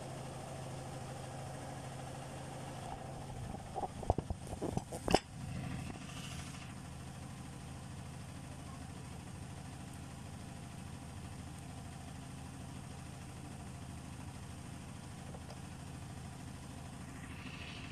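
Steady low hum of kitchen machinery, with a quick cluster of knocks and clatters about four to five seconds in, the last one the loudest.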